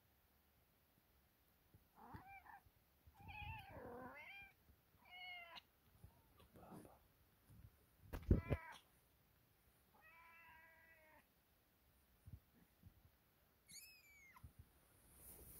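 Young kittens mewing: about seven short, high-pitched mews spaced a second or two apart, the last one falling in pitch. About halfway through, a louder mew comes with a dull bump.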